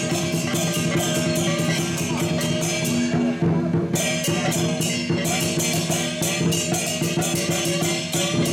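Dragon dance percussion: a drum beating under rapid, continuous cymbal clashes, with sustained low ringing tones beneath.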